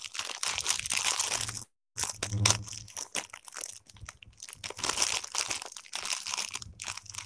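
Irregular crinkling and crackling handling noise, broken by a short dropout about two seconds in.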